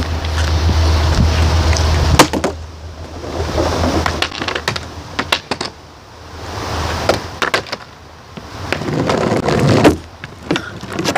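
Skateboard wheels rolling over asphalt in rising and falling swells, with several sharp knocks of the board. A low wind rumble on the microphone stops about two seconds in.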